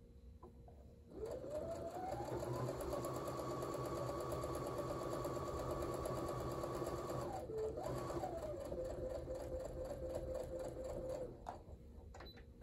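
Brother domestic sewing machine stitching a seam, with a rapid tick of needle strokes over the motor whine. The motor whines up to speed about a second in and runs steadily, pauses briefly past the middle, then starts again at a lower speed and stops near the end.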